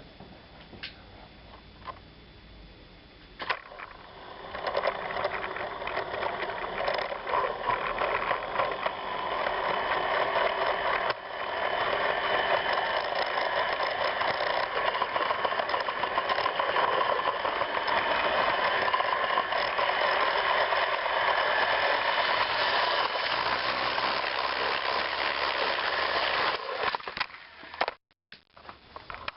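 Toy electric train running on its track: a steady motor whir with wheels rattling over the rails, starting about four seconds in and stopping abruptly near the end.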